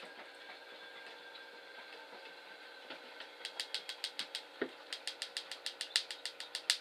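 High-voltage spark igniter arcing between its probes inside a homemade propane spud gun's combustion chamber. It starts about three and a half seconds in and snaps in a rapid even series, about five or six sparks a second. The propane does not ignite: the sparks are too weak to set off a boom.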